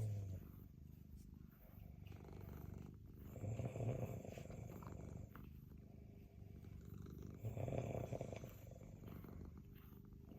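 A sleeping person snoring, a snore swelling about every four seconds, twice here, over a continuous low rumble.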